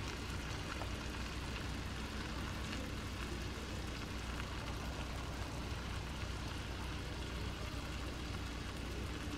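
Ground chicken sizzling gently in a frying pan: a steady, even frying hiss.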